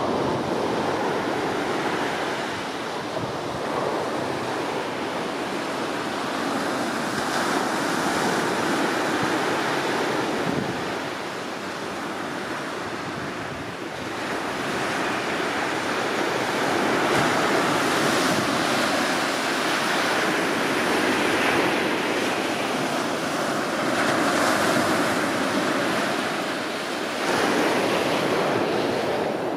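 Rushing of wind and surf with wind buffeting the microphone, swelling and easing every few seconds.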